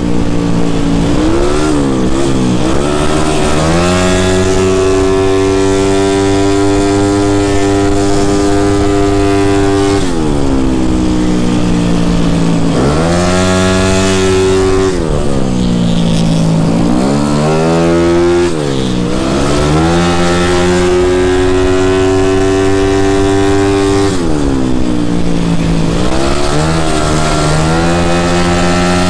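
A race-prepped Yamaha Mio scooter engine heard from on board, at full throttle around a track. The pitch climbs and holds steady along the straights, then drops and picks up again at each corner, about four times.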